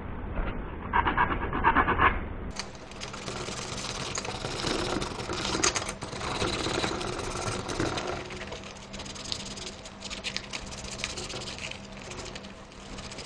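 Metal hobby tool scraping a white plastic model-kit part in two short bursts, then sandpaper rubbing back and forth on a plastic part in quick, dry scratching strokes.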